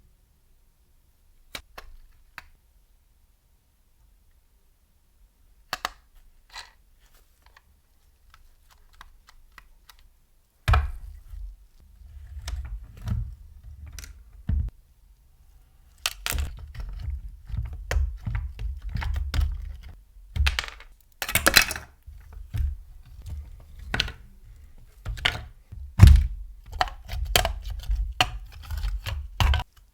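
Irregular clicks, taps and knocks of small hard parts of a scale model car being handled on a work surface. The sounds are sparse at first and become dense about ten seconds in, with heavier thuds among them.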